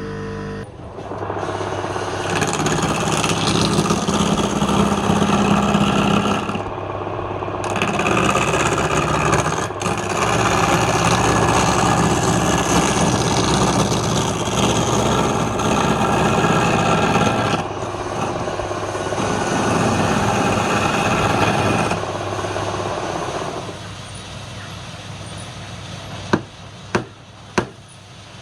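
Wood lathe running with a steady motor hum while a turning tool cuts the spinning wood in several long passes, each a loud even rush. Near the end the cutting stops and there are three sharp taps.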